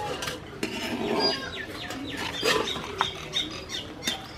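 Birds chirping repeatedly in short, falling calls, over a metal ladle scraping and knocking against a large pot of rice as it is stirred.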